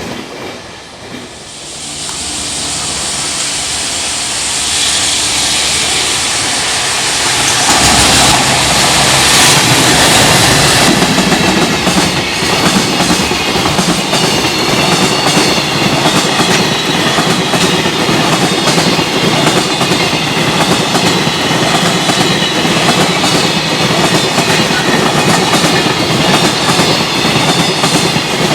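Freight train passing at speed: the noise builds over the first few seconds, peaks with a loud hiss as the head of the train goes by about eight seconds in, then a long steady run of wagon wheels clattering over rail joints.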